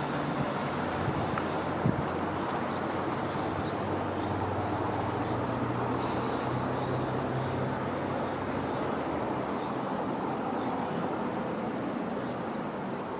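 Steady outdoor background noise with a faint low hum that swells in the middle and a faint, quick, high pulsing chirp running through it.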